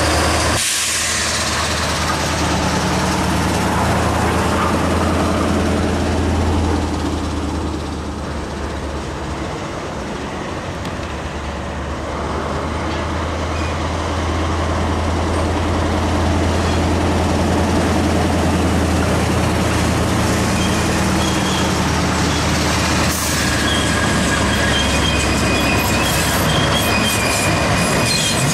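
Diesel shunting locomotive engines running at low revs, a steady deep drone that eases off about eight seconds in and builds again from about twelve seconds. In the last few seconds, as a shunter hauling brake vans draws near, thin high-pitched wheel squeal rises over the engine.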